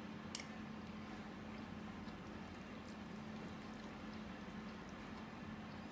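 Chopsticks lightly clicking against a ceramic noodle bowl, one sharp click about a third of a second in and a few faint ticks after, over a steady low hum.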